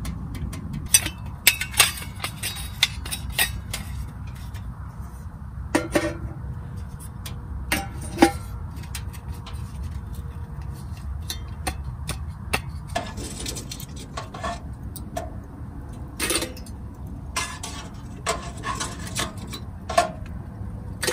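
Stainless steel camp stove parts and a metal tray clinking and knocking as they are handled and set down, in irregular sharp clinks, over a low steady rumble.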